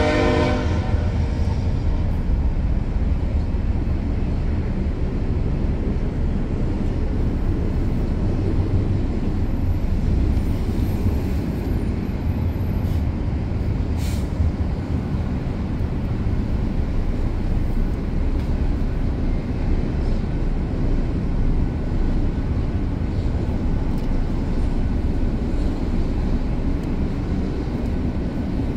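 Long double-stack intermodal freight train rolling past, a steady low rumble and clatter of wheels on rail. The train horn's last blast dies away about a second in.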